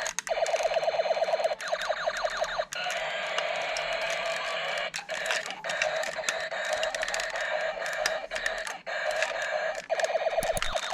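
Electronic sound effect from a toy sound gun's speaker: a rapid buzzing rattle repeated in bursts about a second long, with short gaps and sharp clicks between them.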